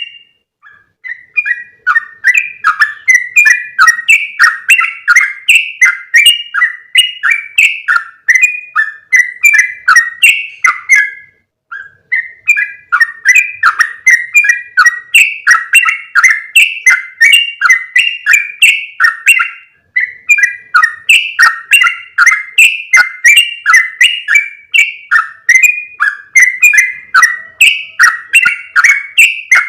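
Yellow-vented bulbul (trucukan) lure call: a fast, continuous run of short bubbly chattering notes, two to three a second, broken by two brief pauses.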